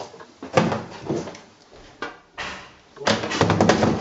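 A few separate knocks and bangs, then a rattling clatter of many quick impacts lasting about a second near the end.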